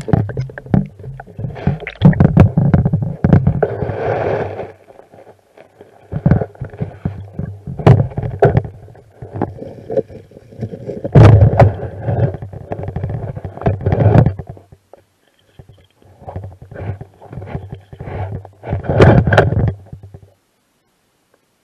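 Stream water heard underwater through an action camera's waterproof housing: irregular knocks, scrapes and gurgling in bursts, with quieter gaps in between.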